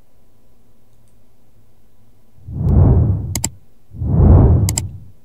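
Sound effects for an animated subscribe button: a swelling whoosh ending in a sharp double mouse click, heard twice in the second half. Before that there is only a faint steady hum.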